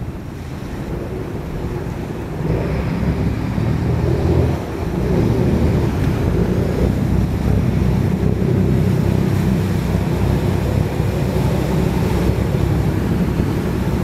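Small workboats' engines running as they turn at speed close by, with their wake churning the water, under heavy wind noise on the microphone. The sound grows louder about two and a half seconds in and again about five seconds in.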